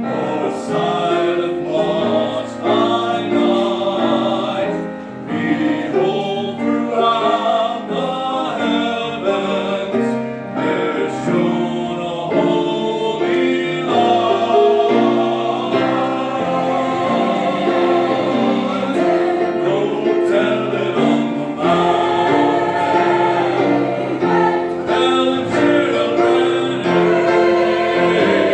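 A church chancel choir singing, many voices together.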